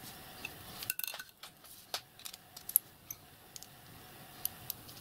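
Small machined metal parts clicking and clinking as they are handled and fitted together by hand: scattered light metallic taps, the loudest a little before three seconds in.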